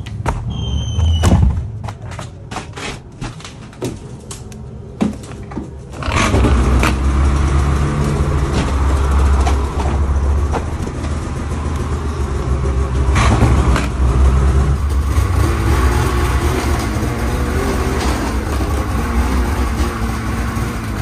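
Snowmobile engine started in an enclosed trailer on a cold morning: a few clicks and knocks, then about six seconds in the engine catches and runs steadily, filling the trailer with exhaust smoke.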